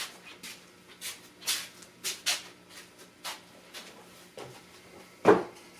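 Handling noise: scattered light taps and rustles, then one sharper knock about five seconds in, over a faint steady hum.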